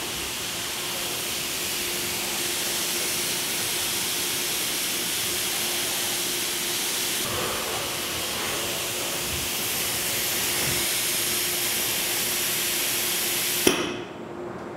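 Kval MLX door-routing machine running its homing sequence: a loud, steady hiss with a faint steady hum under it, cutting off with a sharp click near the end.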